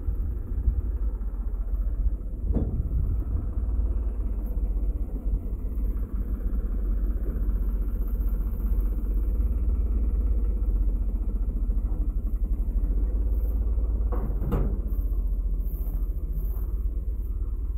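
New Holland 3630 tractor's diesel engine running steadily at idle. Two short knocks cut through it, one a few seconds in and one about three seconds before the end.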